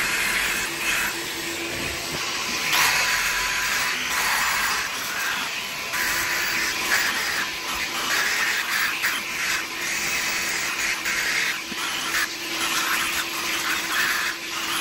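Electric sander working on fiberglass patches, its dust drawn off through a hose by a shop vacuum: a steady motor hum under a hiss that swells and dips as the sander is worked over the surface.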